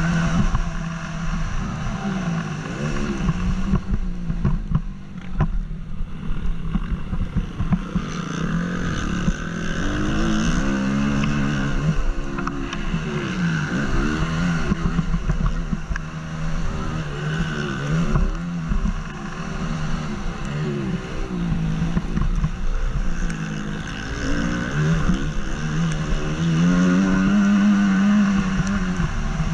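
Honda CRF250's single-cylinder four-stroke engine racing on a motocross track, its pitch rising and falling over and over as the rider opens and closes the throttle, heard from a helmet-mounted camera.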